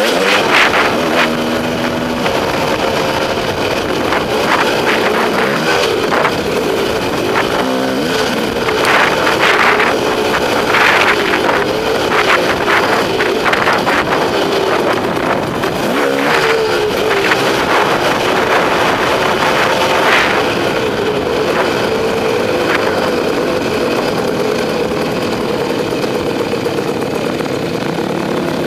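KTM two-stroke enduro motorcycle engine running hard under the rider, its pitch rising and falling with throttle and gear changes, over wind rush, with scattered knocks from the rough trail.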